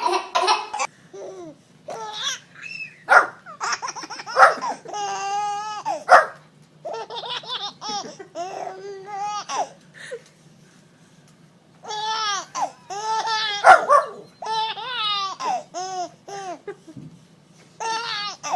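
A baby laughing in repeated bouts of pulsing giggles, with a pause of about two seconds in the middle.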